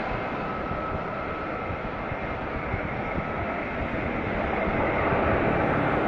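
Airbus A320's IAE V2500 turbofan engines running as the airliner touches down and rolls out along the runway: a steady rush of jet noise that grows louder near the end.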